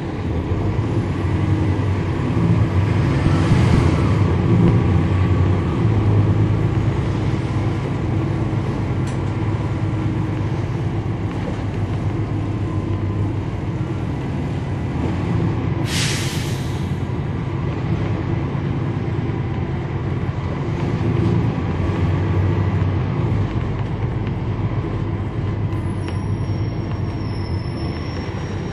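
Cummins ISL9 diesel engine of a NABI 40-foot transit bus heard from on board, running under load as the bus drives, swelling in the first few seconds and again later. About halfway through there is a short, sharp hiss of air.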